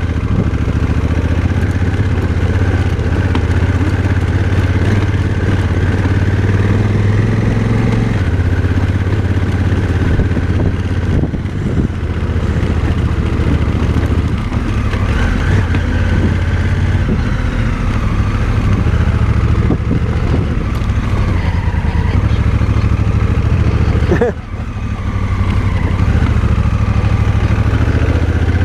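Motorcycle engine pulling uphill on a dirt road, with its note shifting a few times. It drops sharply for a moment about four seconds before the end, then picks up again. The throttle response is softened by the bike's gravel riding mode, and the engine is short of torque on the climb.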